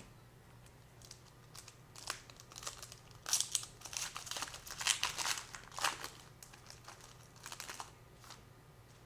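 Foil wrapper of a 2020 Panini Select Baseball hobby pack being torn open and crinkled: a run of quick crackling rustles that starts about two seconds in and dies away near the end.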